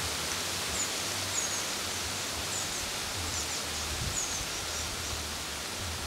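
Wind rustling the leaves of deciduous trees, a steady hiss, with short high bird chirps now and then.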